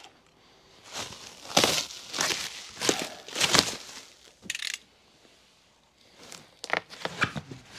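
Plastic stretch wrap rustling and crinkling as it is pulled away from a pallet of boxes, in irregular bursts, then a run of short sharp crackles near the end as cardboard boxes are handled.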